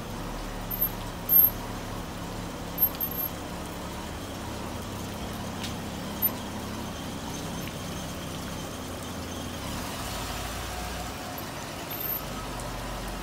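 1977 Mercury Monarch's engine running steadily at idle as the car moves slowly out of a storage unit, with a few brief knocks or clicks in the first few seconds.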